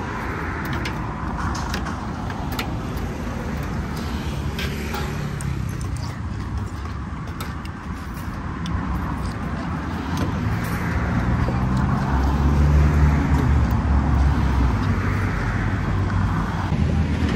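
Road traffic passing on the adjacent road, with a vehicle engine's low hum growing louder about two-thirds of the way through. Scattered light clinks of spoons and chopsticks on ceramic bowls and plates.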